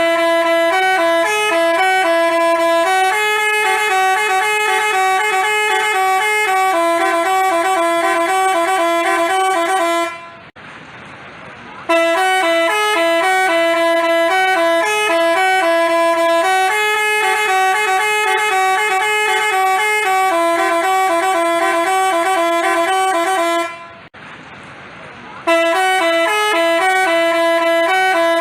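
Basuri telolet musical bus horn playing a tune of stepped, held notes that repeats in three runs, broken by two short pauses about 10 and 24 seconds in.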